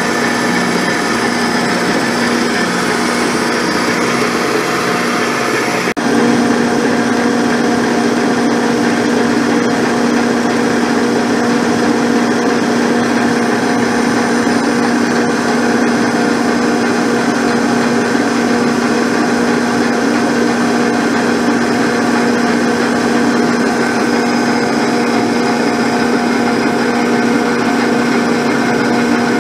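Abene milling machine's spinning face mill taking a 40-thou-deep cut along a cast-iron straight edge casting: a steady, pitched machining sound. About six seconds in it steps up and the tone grows stronger.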